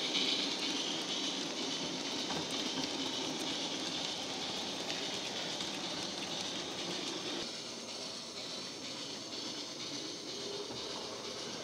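Model steam locomotive sound from a DCC sound decoder, played through the small built-in speaker of a Planet Industrials Kerr Stuart Victory OO-gauge loco, with the running of its train of model wagons on the track. A hiss fades in the first seconds, and the whole sound drops a little past the middle.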